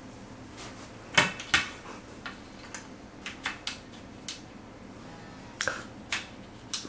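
Sharp clicks and taps of a snap button being pressed and worked into the end of a fiberglass height-stick tube: two louder clicks a little over a second in, a scatter of lighter taps, then three more clicks near the end.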